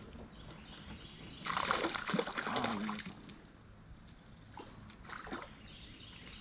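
Water splashing in a burst of about a second and a half, followed by a few fainter splashes.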